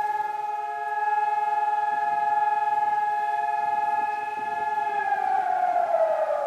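Civil defense siren sounding one steady tone, then winding down in pitch over the last second and a half. It is the memorial siren sounded across Israel on Holocaust Remembrance Day.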